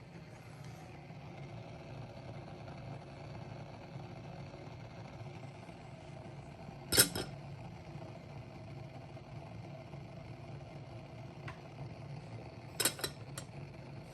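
Sharp clinks of hard objects, one loud one about seven seconds in and two or three more near the end, over a steady low hum.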